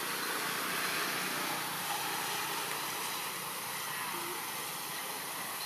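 Steady outdoor background hiss, with a faint short squeak about four seconds in.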